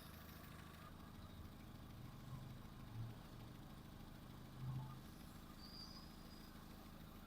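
Car engine idling steadily and quietly, with two brief swells in its low hum about three and about four and a half seconds in.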